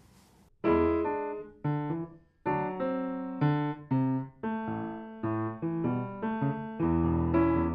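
Solo piano intro: a run of chords, each struck and left ringing, starting just over half a second in and coming about once every half second to a second.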